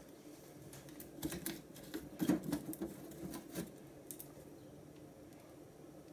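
A glass bottle being handled and lifted off a metal stovetop: a handful of light knocks and clicks over about three seconds.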